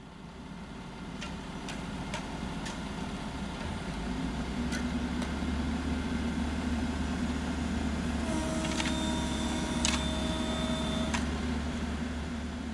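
Diesel engines of a tractor and backhoe loader running at a steady idle-like pitch, the hum swelling over the first few seconds. There are a few sharp metallic clicks early on, and a steady whine lasting about three seconds from around eight seconds in.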